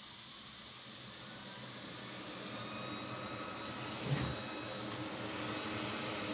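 Hot air rework station blowing, a steady even hiss of airflow that gets slightly louder in the second half as the nozzle is brought over the board to desolder a shorted capacitor. A light thump about four seconds in.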